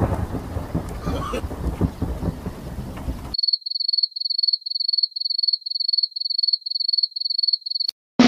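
A noisy rumbling haze with scattered clicks cuts off about three seconds in. A high, pure electronic beep follows, repeating about two and a half times a second over dead silence, and ends with a single click just before the end.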